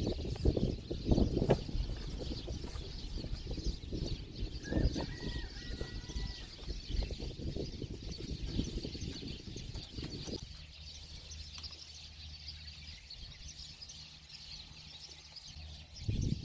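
Irregular knocks and rustling as hands work at the front of a Toyota Land Cruiser six-cylinder engine, turning it over by hand to set the distributor points. A short thin chirp comes about five seconds in. After about ten seconds the handling stops, leaving a faint low hum.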